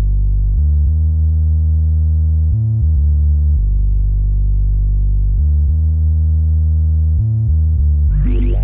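Background electronic music: a deep, sustained synthesizer bass that changes note every second or two. Near the end, higher sliding synth tones come in.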